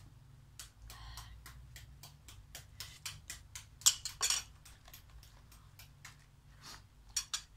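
Metal spoon and fork tapping and scraping in a stainless steel pot and a plastic food container: a run of small, sharp clicks a few times a second, with a louder clatter about four seconds in.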